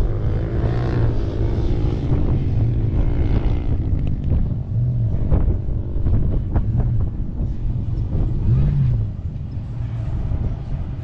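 Pickup truck engine running at low revs, its note swelling and easing a few times as the truck crawls over concrete pipes, with wind buffeting the microphone.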